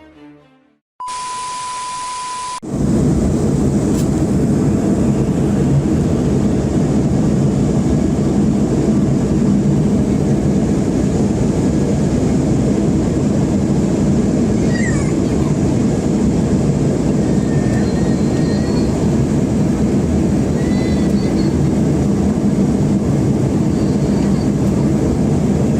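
A steady beep lasting about a second and a half, then constant jet airliner cabin noise: the engines and rushing air heard from inside the cabin, a deep steady rush with no change in level.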